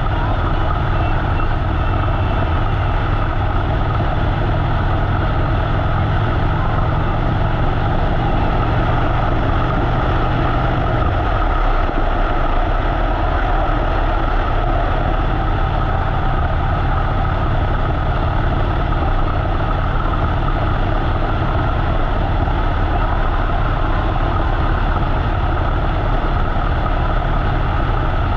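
Harley-Davidson motorcycle running at road speed, recorded on a helmet or bike-mounted action camera, with wind noise over the microphone. The low engine note changes about eleven seconds in.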